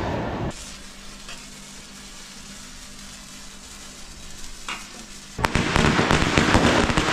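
Fountain fireworks hissing as they spray sparks, cutting off about half a second in. After a quieter stretch, a firework on the ground crackles loudly with rapid pops from about five and a half seconds in.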